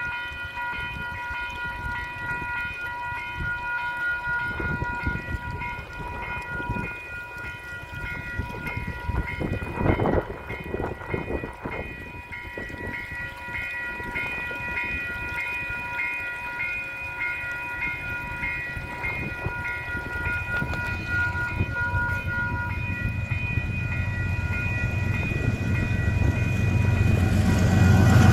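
Level crossing alarm bells ringing steadily. From about two-thirds of the way in, the deep rumble of an approaching freight train's DXC and DFB diesel-electric locomotives builds, and it is loudest as they reach the crossing at the end.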